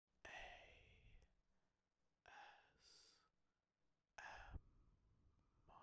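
Faint breathy sounds from a person's voice, three of them about two seconds apart.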